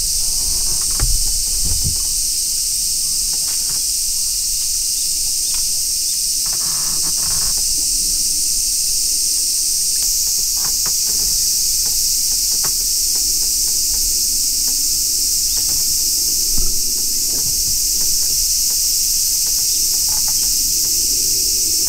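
Dense chorus of cicadas in the surrounding forest, a steady high-pitched hiss with no breaks, with a few faint clicks and knocks here and there.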